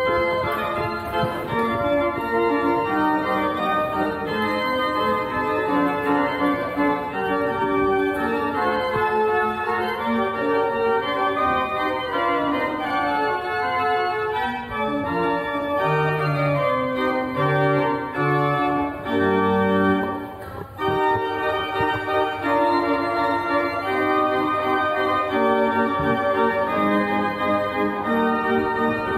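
Organ music: a melody over sustained chords, with a short break about twenty seconds in.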